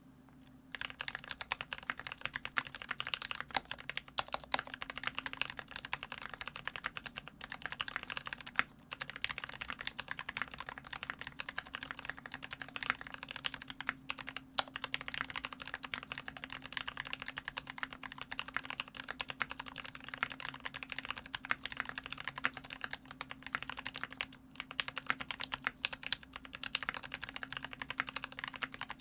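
Fast, continuous typing on a custom mechanical keyboard: an LZ IRON Antique with a brass plate, lubed Gateron Ink Black linear switches and GMK keycaps. The typing starts about a second in and runs on with a few brief pauses.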